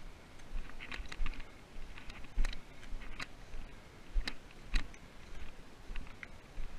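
Footsteps crunching through dry fallen leaves on a forest floor: an uneven series of crisp crunches, about one or two a second.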